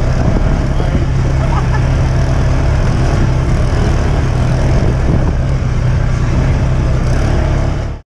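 Polaris RZR side-by-side buggy's engine running at a steady, unchanging pitch, heard close up.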